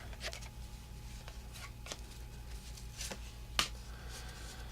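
1984 Topps baseball cards being flicked through by hand: a run of light, sharp card snaps and slides, about seven spread unevenly, the loudest near the middle, over a steady low hum.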